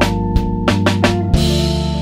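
Background music: a drum kit beating over held bass notes, with a cymbal wash in the second half.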